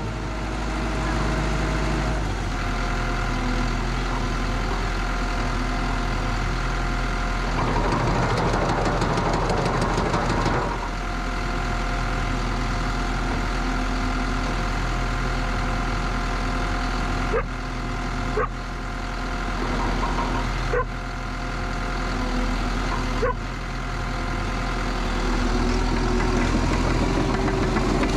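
Bulldozer's diesel engine running steadily while it pushes dirt, with a few abrupt breaks in the sound in the second half.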